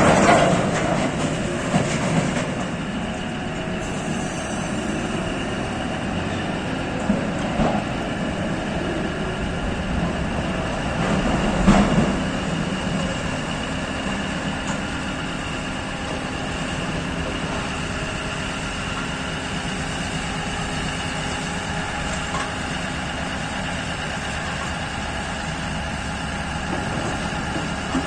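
P&H electric mining shovel at work, its electric drives and gearing running with a steady humming din. A heavy rumble fades away in the first second or two, and a single sharp clank comes about twelve seconds in.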